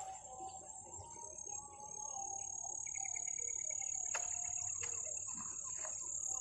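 An insect's steady high-pitched trill runs on without a break. About halfway through, a second, lower pulsed call sounds for about a second, and there are a few faint clicks.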